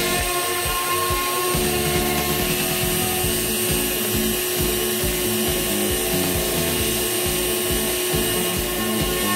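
Rotary tool on an MPCNC router spinning at steady high speed with a constant whine as its bit mills into a board. Underneath, lower motor tones keep shifting in pitch as the machine's stepper motors move the tool along the cut.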